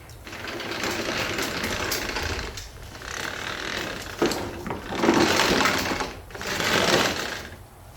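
Toro 22-inch Recycler self-propelled mower's wheels and drive rattling as the mower is rolled by hand, in four bursts of a second or two each. This is the noise from the wheel drive gears that the mechanic links to the mower's no-drive fault.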